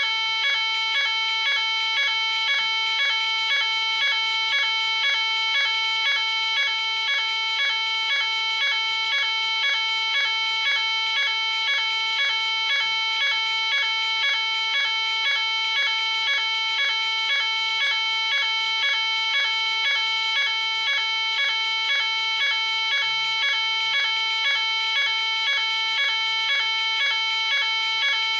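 Fire alarm sounding continuously: a steady, high-pitched alarm tone with several overtones, pulsing at a quick, even rate without a break.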